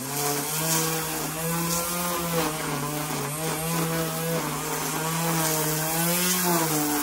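Electric string trimmer running while cutting grass, its motor pitch rising and dipping over and over as the line meets the grass.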